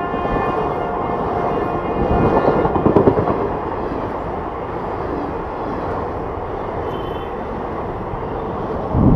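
Indian Railways passenger coaches rushing past at speed: a steady, loud rumble and rattle of wheels on rail, with louder surges about two to three seconds in and near the end. The tail of the locomotive's horn fades out in the first second or so.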